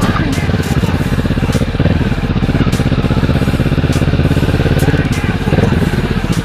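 Kawasaki ER-6n's 649 cc parallel-twin engine running at low, fairly even revs while the motorcycle is ridden in city traffic.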